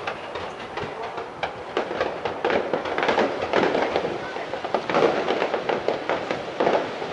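Star mine fireworks barrage: a rapid, continuous string of bangs and crackles, thickest and loudest in the middle.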